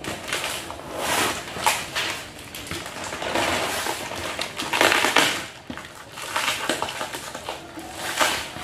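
Plastic packaging crinkling and rustling in irregular bursts as it is handled and cut open.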